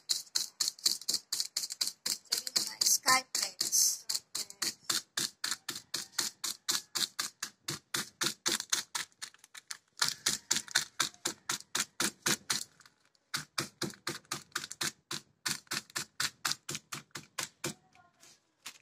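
A hard plastic bottle tapped over and over on a slice of bread lying on a concrete counter, making rapid, even clicks about five a second, with two short pauses and a stop near the end.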